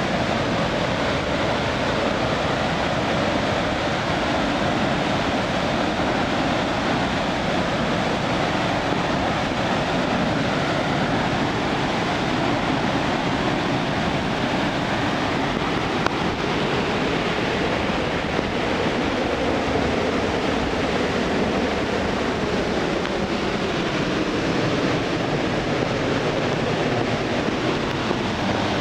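Waterfall in heavy flow after typhoon rains, a loud, steady rush of falling water that never lets up.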